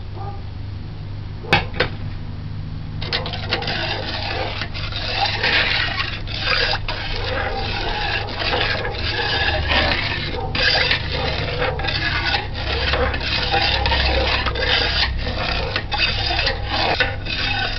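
A metal spoon stirring sugar into sorrel drink in an aluminium pot, scraping and rubbing against the pot with rapid irregular strokes and sloshing liquid. There is a single sharp clink about a second and a half in, and the steady stirring starts about three seconds in.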